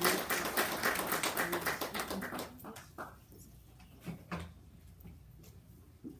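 A small audience applauding, the clapping thinning out and dying away about two and a half seconds in. A couple of separate knocks follow.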